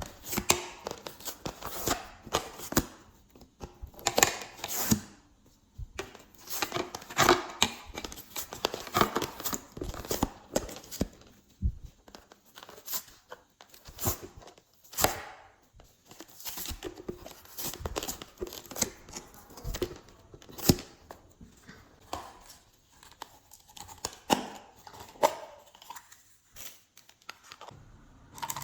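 Glossy slime being mixed and stretched, giving off irregular sticky crackles, clicks and tearing sounds.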